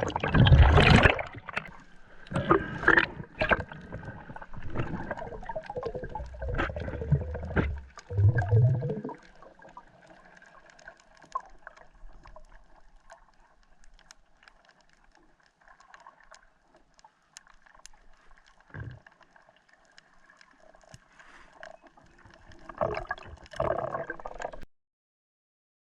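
Water gurgling and splashing, loud and irregular for the first nine seconds, then faint.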